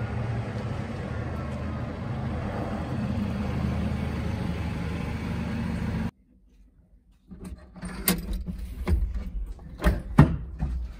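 Chevrolet Colorado pickup's engine running with a steady low rumble, cut off abruptly about six seconds in. After a second of quiet come a string of sharp clicks and knocks as the camper shell's rear hatch and its latches are worked.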